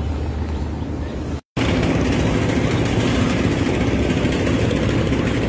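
Steady engine rumble, broken by a complete dropout for a fraction of a second about a second and a half in, then resuming steady.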